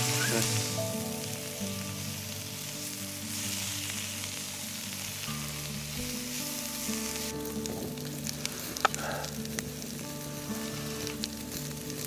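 Hokki clam and asparagus sizzling as they fry in butter in a pan. The sizzle thins out about seven seconds in, and a few sharp clicks follow. Quiet background music plays underneath.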